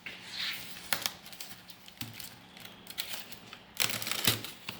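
Packaging being handled: crinkling plastic and cardboard with scattered sharp clicks and knocks, several in quick succession near the end.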